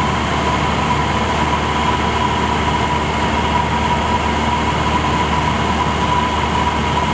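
Steady drone of a light biplane's piston engine and propeller heard from inside the cockpit, with a constant high tone running through it.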